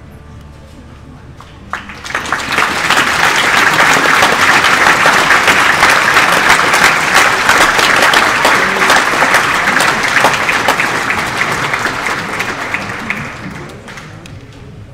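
Large crowd applauding a band's performance; the clapping starts about two seconds in, builds quickly, holds, and fades out near the end.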